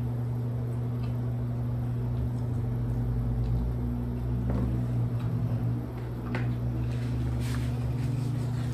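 A steady low background hum, with a few faint soft clicks and rustles as a paper food box and a plastic sauce cup are handled.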